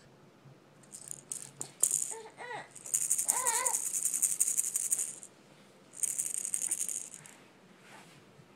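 A baby's toy rattle shaken in three bursts, the middle one about two seconds long. Twice in between comes a short, high voice sound that rises and falls in pitch.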